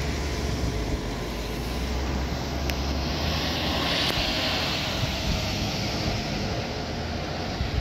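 Road traffic passing: a steady low engine rumble, with tyre hiss swelling about three to four seconds in as a pickup truck drives close by.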